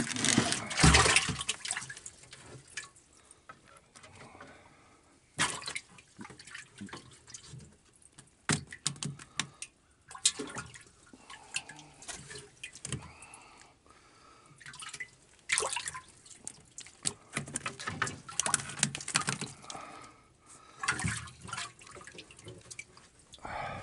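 Water splashing and dripping in a boat's live well as a hand grabs at the caught fish (bream and warmouth) swimming in it, in irregular bursts with the heaviest splashing about a second in.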